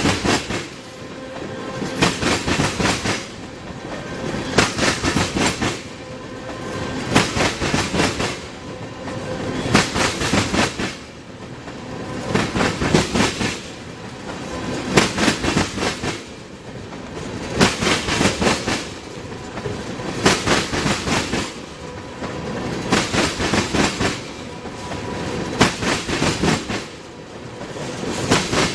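Freight train of tank cars rolling past, its steel wheels clacking and rumbling on the rails. The clatter swells and fades in a steady rhythm about every two and a half seconds as each pair of trucks at the car ends crosses.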